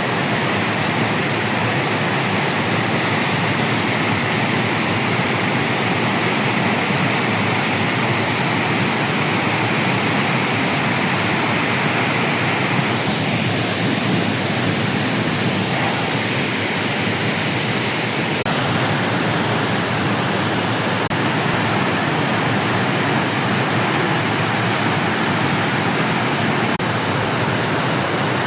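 Walawe River in flood: fast, high water rushing with a loud, steady roar.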